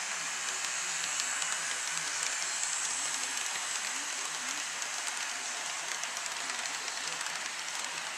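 HO-scale Proto 2000 GP-7 model diesel locomotive and its freight cars rolling along model railroad track: a steady whirring hiss with frequent small clicks.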